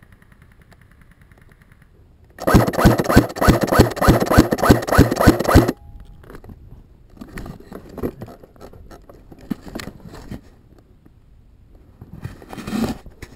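An airsoft gun firing a rapid burst of about three seconds, an even train of sharp shots about six a second that starts and stops abruptly. Afterwards there is lighter rustling and crunching of movement through snow and brush.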